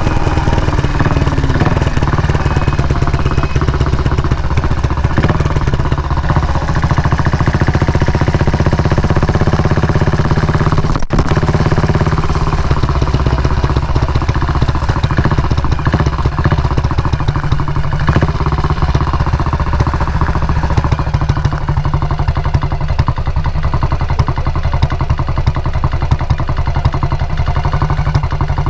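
Motorcycle engine running steadily close to the microphone, a dense, even beat of firing pulses over a low, steady tone, with one very brief drop-out about eleven seconds in.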